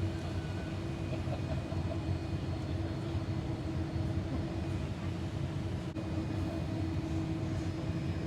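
Cabin noise aboard a Boeing 787-8 during takeoff and initial climb: a steady low engine and airflow rumble with a constant hum.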